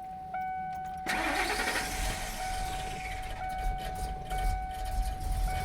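Ford E-350 van engine cranked by the starter about a second in, catching quickly and settling into a steady idle, while the key-in-ignition chime keeps dinging. It starts readily here, without the hard start blamed on a faulty fuel pump check valve.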